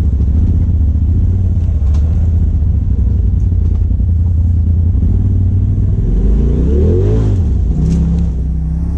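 Side-by-side UTV engine running steadily while driving along a dirt trail, heard from inside the cab, with a brief rev up and back down about seven seconds in.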